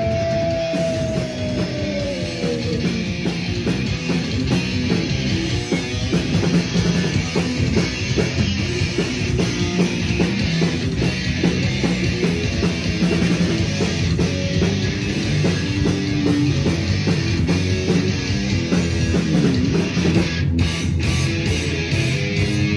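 Hardcore punk band playing live at full volume: distorted electric guitars, bass and fast, driving drums in an instrumental stretch without vocals. A held note slides down in pitch over the first few seconds.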